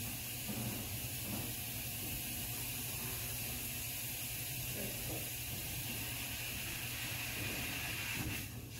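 Stage fog machine hissing steadily as it blows a jet of fog, with a low hum underneath; the hiss cuts off near the end.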